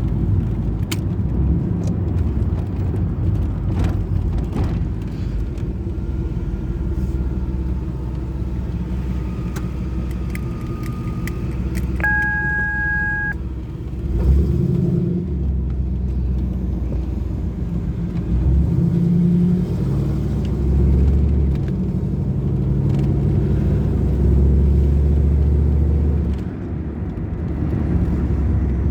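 Camaro IROC-Z's V8 idling roughly, its rumble swelling and sagging unevenly instead of holding steady: the warm-engine rough idle that leads to stalling. A steady electronic beep sounds for about a second and a half near the middle.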